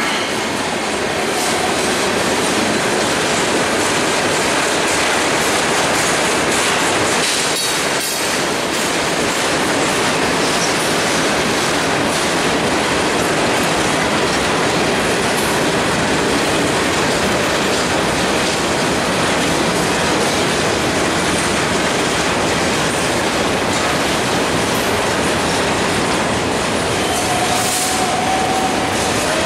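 Freight cars of a passing train rolling by close at hand, a steady loud rumble and clatter of wheels over the rails and crossing, with a burst of sharper clanking about eight seconds in and a brief squeal near the end.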